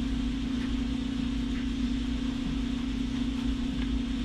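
Steady low hum from an unseen machine or appliance, with a few faint small clicks of a screwdriver working the screws of a mini PC's metal chassis.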